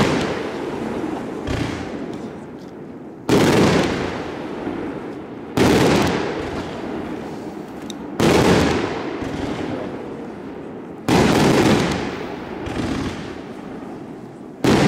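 Funke Fermata 100A compound fireworks cake firing: five sudden loud shell bursts, two to three seconds apart, each crackling and fading away over a second or two before the next.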